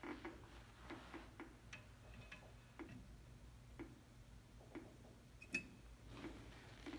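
Geiger counter clicking at irregular intervals, roughly two clicks a second, each click a beta particle from the strontium-90 source detected by the tube. A louder knock with a short high tone comes about five and a half seconds in.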